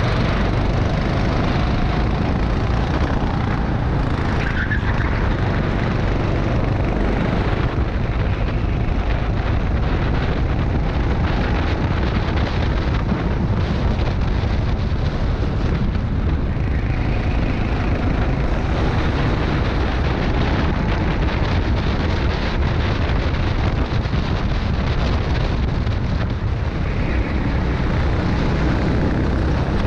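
Rental go-kart engine running at racing speed, heard from the kart itself, its pitch rising and falling as it accelerates out of corners and backs off into them.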